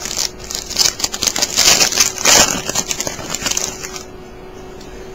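Plastic wrapper of a trading-card pack crinkling and crackling as it is pulled open and the cards are handled. The crackles come quick and uneven and stop about four seconds in.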